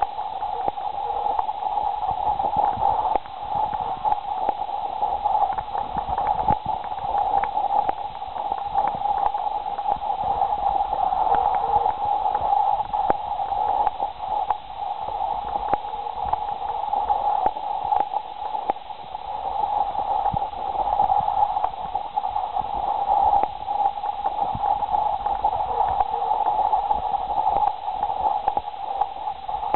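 A steady crackling hiss that sits in the middle of the pitch range, like a radio tuned between stations, with many small clicks throughout.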